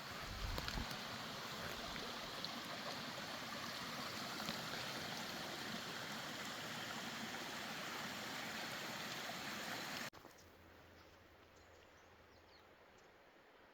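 Steady rushing of a mountain creek, with a few low bumps near the start; it cuts off suddenly about ten seconds in, leaving a much quieter background.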